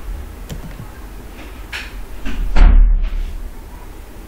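A few faint computer keyboard keystrokes, then a loud, dull thump about two and a half seconds in.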